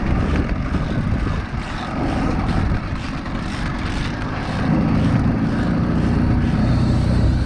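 Evinrude outboard motor running on a small boat in choppy sea, with wind buffeting the microphone and water splashing. About five seconds in the engine drone grows louder and steadier.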